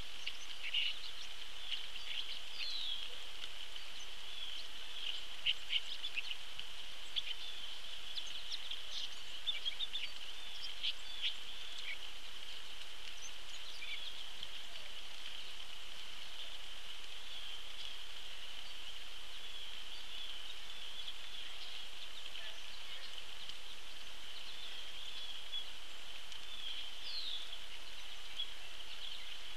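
Outdoor pond ambience in the rain: a steady high-pitched hiss, with scattered short bird chirps and drip-like ticks, most of them in the first dozen seconds and a few near the end.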